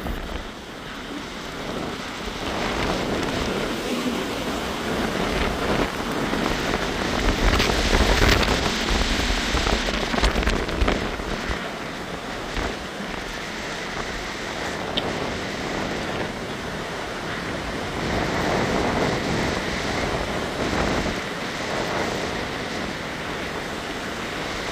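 Hurricane wind and heavy rain: a dense, steady rush that swells louder with gusts around the middle.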